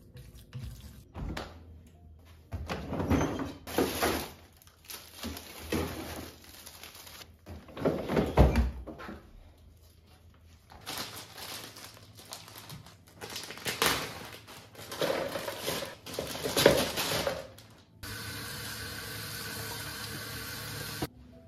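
Kitchen handling sounds, a string of knocks, thuds and rustles as a freezer door and drawer are opened. About three seconds before the end, a kitchen tap starts running steadily into a plastic colander.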